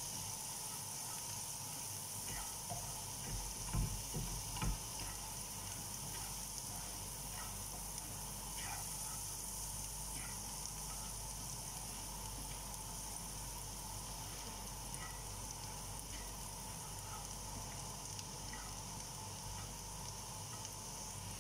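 Minced garlic frying in melted butter in a nonstick pan: a steady sizzle with many small pops as the garlic browns. Two soft knocks come about four seconds in.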